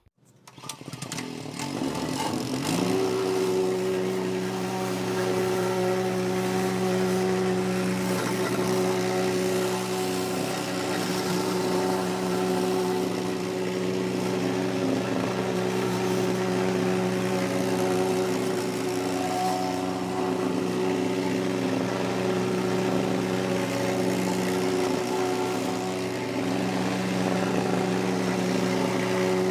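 Gas engine of a plate compactor starting up and coming up to speed over about two seconds, then running steadily at full throttle while it compacts the sand-and-paver-base bed.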